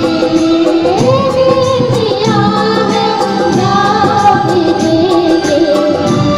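Women singing a Hindi film song into handheld microphones over amplified backing music, heard through a PA system.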